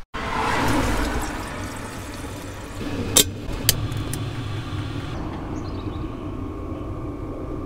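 Camper van gas hob being lit: a rush of gas, two or three sharp clicks of the lighter about three seconds in, then the burner running with a steady low rumble.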